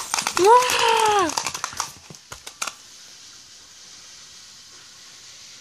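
Clicking and rattling of a Furby toy being grabbed and moved about, with one drawn-out, high, voice-like wail that rises and falls in its first second or so. A few more clicks follow at about two seconds, then it goes quiet.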